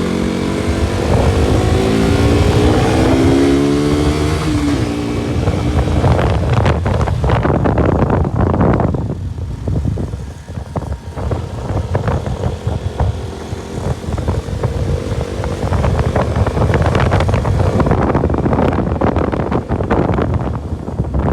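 KTM RC 200's single-cylinder engine revving up through the gears, then the motorcycle running over rough off-road ground with many knocks and rattles. The engine eases off about halfway through and picks up again near the end.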